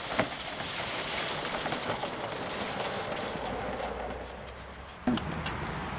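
Gauge 1 Accucraft M6 gas-fired live steam locomotive hissing steam as it moves off, the hiss starting suddenly and dying away after about four seconds; the engine is still wet with condensate and its cylinder drain cocks are open. A few sharp clicks come near the end.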